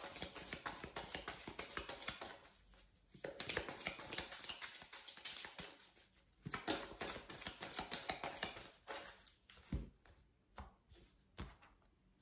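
A deck of oracle cards being shuffled by hand: a faint run of rapid papery clicks in spells with short pauses, thinning to a few separate clicks and soft knocks near the end.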